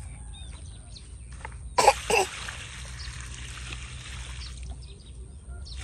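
Water poured from a bucket onto the base of a young plant on a dirt bank. Two loud splashes come about two seconds in, then a splashing pour runs for about two and a half seconds.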